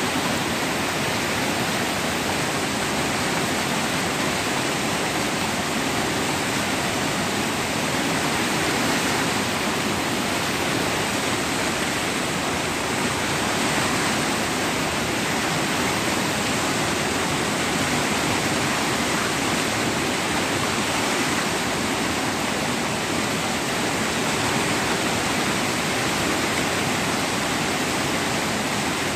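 River in flood rushing over rapids: a steady, dense rush of churning brown floodwater breaking in standing waves, with no let-up.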